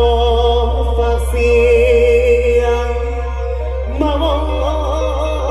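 Amplified mor lam singing through a loud concert sound system: a voice holds long, wavering notes over a steady deep bass.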